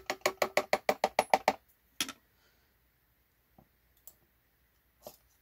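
A small hammer tapping on a thin flat screwdriver wedged under a Lishi pick's old tip, prying the bent, friction-welded tip off: a quick run of about ten light, ringing metal taps in a second and a half, then one more tap. A few faint clicks and a knock follow.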